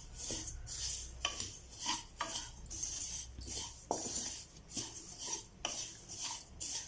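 A utensil stirring white sesame seeds as they dry-roast in a pan, scraping against the pan in repeated, irregular strokes.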